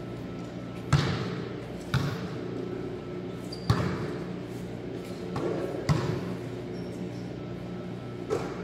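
Basketballs bouncing on a hard court floor: about five separate sharp thuds at uneven intervals, each echoing in a large hall, over a steady low hum.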